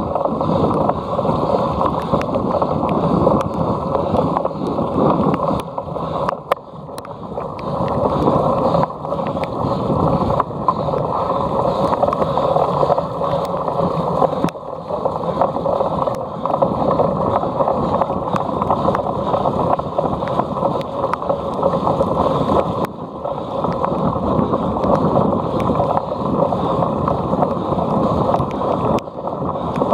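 Wind rushing over the microphone of a camera riding along on a cyclocross bike at speed, with many small knocks and rattles from the bike on rough ground. The rush eases briefly a few times, about a third of the way in, near the middle and about three-quarters through.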